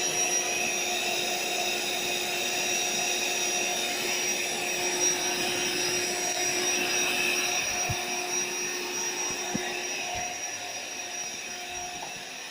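An AeroBed Deluxe Raised air mattress's built-in electric pump runs steadily, blowing air into the bed as it slowly inflates. It is a continuous motor hum with a steady whine, growing gradually quieter over the last few seconds.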